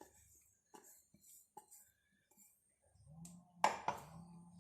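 Faint clinks and taps of kitchen utensils, then one sharp knock about three and a half seconds in.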